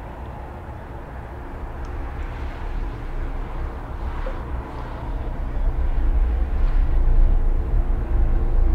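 A deep, low rumble with a hiss over it, swelling gradually louder, with a few faint crackles.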